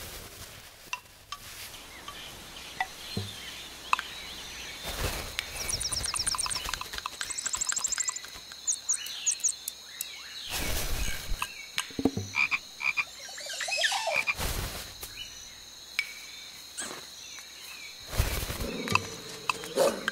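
Frog croaking, mixed with tissue paper crinkling and rustling in short bursts. There is a rapid run of high clicking pulses about six to eight seconds in.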